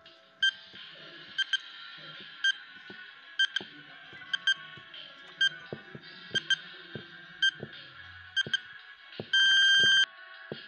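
Countdown timer beeping about once a second, ending in a loud long beep near the end, over background music.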